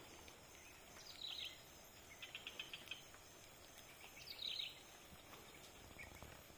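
Faint bird calls over a quiet outdoor hiss: a few short falling chirps about a second in and again a little past four seconds, with a quick rattling trill between them.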